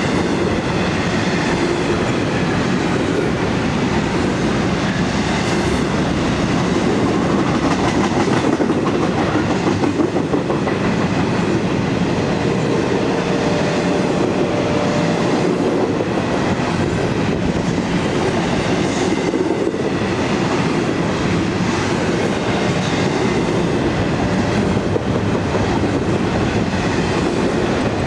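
Double-stack intermodal freight train's well cars rolling past close by: a steady, loud rumble of steel wheels on rail that holds even throughout.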